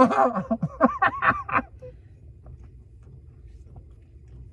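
A person's voice, loud and wordless, for about a second and a half at the start, then a low steady hum.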